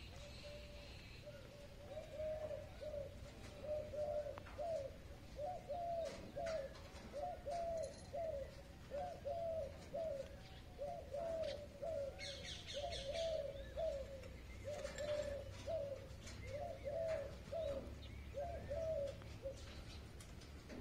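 Pigeon cooing: a long series of short, low coos in small groups, about one group a second, with a brief burst of high chirps about twelve seconds in.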